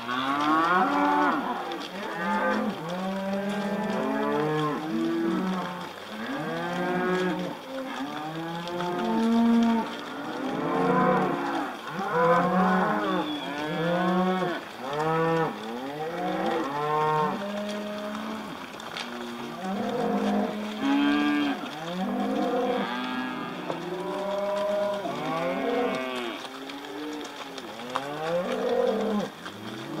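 A herd of cattle mooing almost without pause, many calls overlapping one after another, each rising and falling in pitch.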